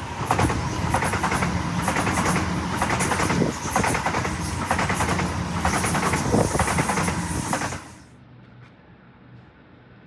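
A train passing with loud running noise and a fast clatter that rises and falls in level. It cuts off abruptly about eight seconds in, leaving quieter background noise.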